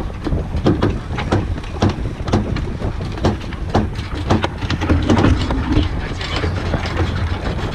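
Sailing yacht winch and deck gear clicking and knocking irregularly, a few sharp clicks a second, as crew work the sheets. Under it runs a steady low rumble.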